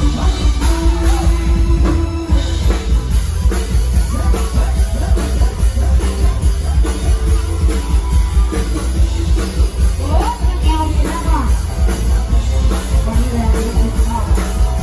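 Live Thai luk thung band playing loudly with a steady beat: heavy bass and drum kit under electric guitar, with a singing voice at times.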